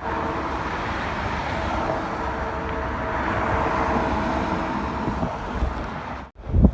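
Steady vehicle running noise with several held tones over it, which fade out shortly before an abrupt cut near the end.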